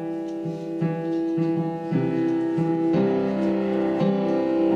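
Piano playing the introduction to a worship song: sustained chords over a low note struck about twice a second, growing fuller about three seconds in.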